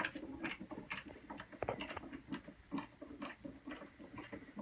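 A hand screwdriver turning a screw, giving faint, irregular clicks and ticks several times a second.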